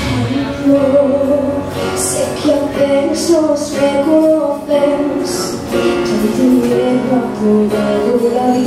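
A woman singing a ballad live into a microphone over piano accompaniment, her voice carrying a slow melody with held notes.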